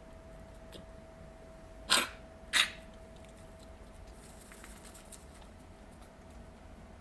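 French bulldog puppy with kennel cough letting out two short, sharp, explosive bursts of air from the airway, about two-thirds of a second apart, typical of the irritated throat and airways of kennel cough.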